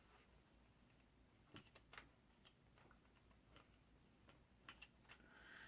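Faint scattered metallic clicks, about half a dozen, from handling a Mosin-Nagant rifle and a stripper clip of 7.62x54R cartridges during loading; otherwise near silence.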